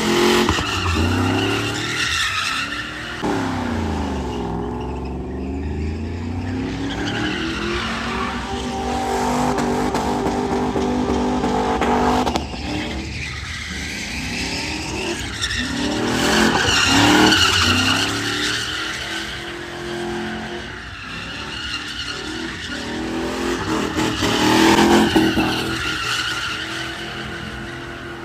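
Chevrolet Silverado pickup doing donuts: the engine revs up and down hard again and again while the tires skid and squeal on the pavement.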